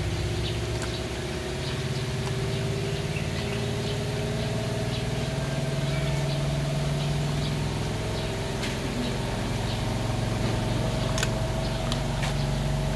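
A motor engine running steadily at idle, with scattered faint clicks of a puppy crunching raw chicken feet.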